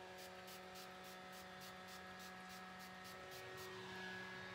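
Fine-mist setting spray being pumped in quick short spritzes, about four a second, that stop shortly before the end.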